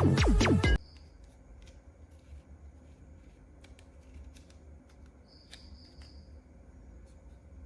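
Electronic music with a beat cuts off suddenly about a second in. Faint rustling and light clicks follow, from toy packaging being handled and opened, with two short soft hisses, the second a little over halfway through.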